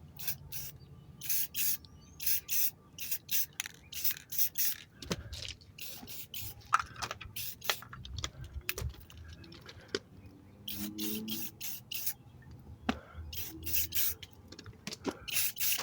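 Clear coat being sprayed from a trigger-operated spray can in many short, light bursts. Each pull of the trigger gives a quick hiss, coming in quick runs with brief pauses between them.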